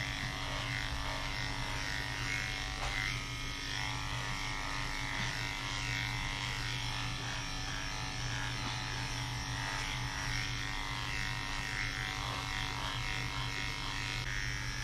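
Electric dog-grooming clippers with a number 10 blade running with a steady hum, shaving matted fur from a doodle's ears.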